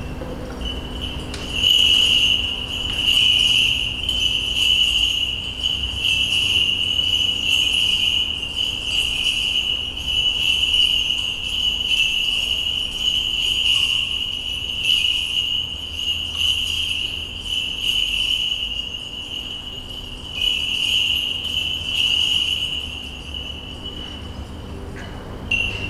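Small bells on a swinging Orthodox censer jingling, swelling and fading every second or so, and dying away near the end.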